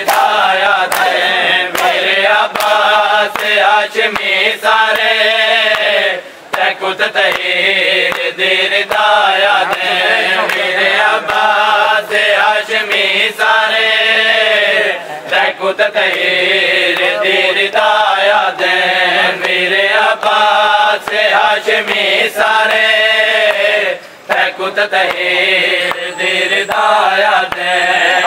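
Mourners chanting a noha (lament) in unison, the singing rising and falling line by line, with sharp slaps of hands beating on bare chests (matam) throughout. The chant breaks off briefly twice, about six seconds in and near the end.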